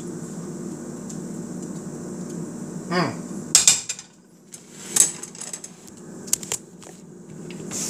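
A dinner plate set down and the camera handled on the kitchen counter: a few sharp clatters and knocks, the loudest about three and a half seconds in and again at five seconds, then lighter clicks. A steady low hum runs underneath until the clatter starts.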